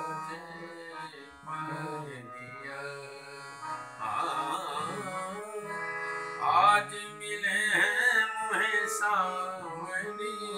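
Harmonium playing steady held chords while a man sings a devotional Hindi song over it, his voice sliding between notes in long phrases, louder around the middle and near the end.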